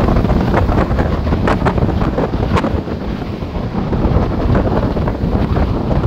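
Strong wind buffeting the microphone on a ferry's open deck while under way, a loud low rumble with a few sharp crackles, over the rush of the sea.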